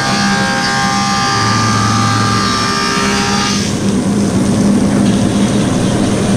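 Woodmaster 725 planer cutting a hardwood board: a loud, steady machine noise with a high singing whine from the knives in the wood. About three and a half seconds in, the whine stops as the board clears the cutterhead, and the planer keeps running with a lower hum.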